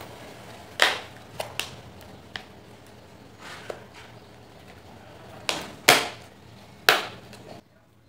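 Plastic parts of a Ventisol fan's motor housing clicking and knocking together as they are fitted by hand, about eight irregular sharp knocks with the loudest three in the second half. The sound cuts off abruptly near the end.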